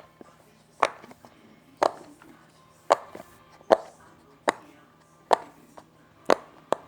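Bubbles of a silicone Pop It fidget toy being pressed one at a time on its crunchy side: a sharp pop about once a second, eight in all.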